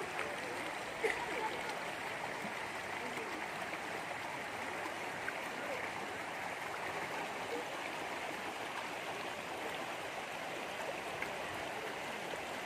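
Shallow stream rushing and burbling steadily over and between boulders.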